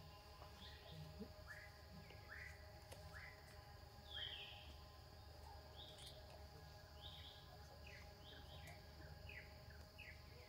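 Faint outdoor ambience of birds chirping: short, falling chirps repeated about once a second, with one louder call about four seconds in, over a low steady hum.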